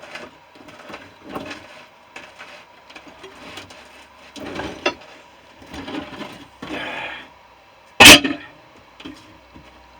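Scattered knocks and scrapes of metal parts being worked on while a central air compressor is dismantled, with one loud sharp bang about eight seconds in.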